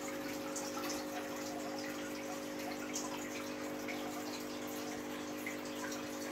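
Water trickling and dripping in a small aquarium, with scattered little splashes over a steady low hum.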